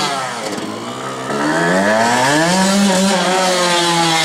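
Yamaha YZ motocross bike engine: the revs fall away and dip briefly, then climb steadily for about a second and a half as the bike accelerates, and hold at a high even pitch before easing slightly near the end.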